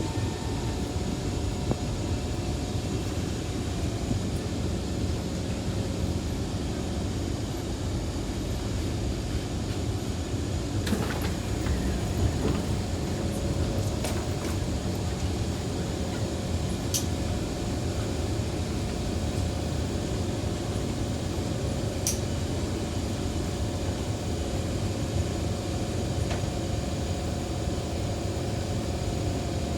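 Kawasaki C151 train standing at a station with its doors open: the steady hum of its air-conditioning and auxiliary equipment, with a few faint clicks now and then.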